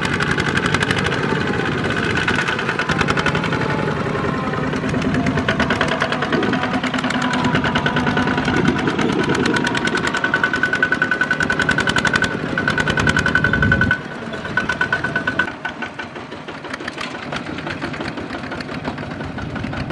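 Single-cylinder diesel engines of Kubota two-wheel walking tractors chugging with a fast, even knock as they pull loaded trailers. About fourteen seconds in the sound drops, and quieter engine chugging from tractors farther off carries on.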